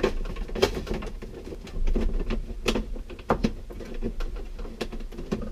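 Scattered light clicks, knocks and rustling from hands working wires through a drilled hole in a Honda Civic EF's plastic dashboard.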